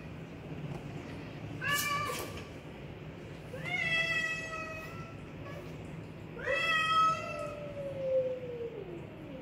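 Two cats yowling at each other in a fight standoff: three drawn-out, wavering yowls, the first short, the last nearly three seconds long and sliding down in pitch at its end.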